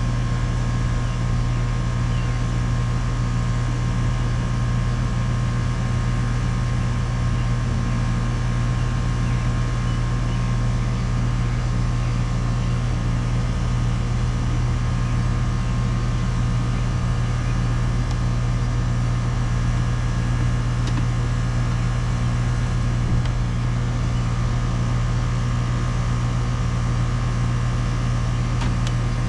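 Outdoor air-conditioning condensing unit running with a steady, unbroken hum.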